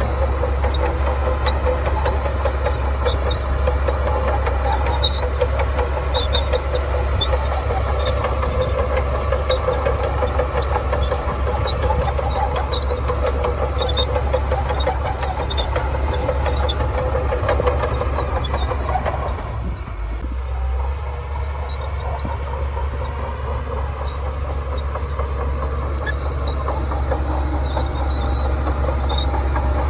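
Shantui DH17C2 bulldozer's diesel engine running steadily with a deep rumble, light high clicks over it. About twenty seconds in the engine note drops and the sound gets a little quieter.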